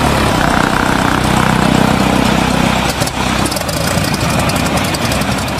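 Rutan Defiant's push-pull piston engines running at low power as it taxis, a steady propeller drone. A crackle comes in over it from about three seconds in.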